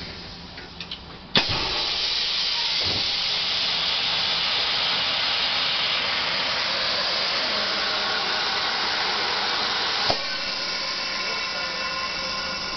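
Macpi double-table sublimation heat press working: a sharp click, then a loud steady hiss of air that runs for about eight seconds and ends in a second click, after which a softer hiss carries on.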